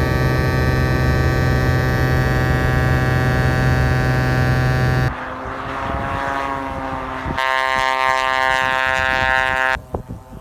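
Single-engine propeller plane's engine droning loudly and steadily, heard inside the cabin. About five seconds in it turns fainter with its pitch sliding as the plane is heard out on the snow, then steady and louder again, and near the end it drops away to a quieter stretch with a few knocks.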